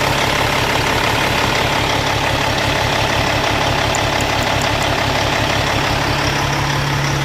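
Freshly rebuilt Cummins diesel in a Peterbilt 389 idling steadily, warmed up to operating temperature.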